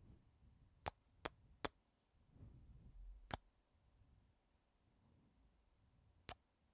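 Faint close-up kisses: five sharp smacks, three in quick succession about a second in, one a little past three seconds and one near the end, with soft slow breathing in between.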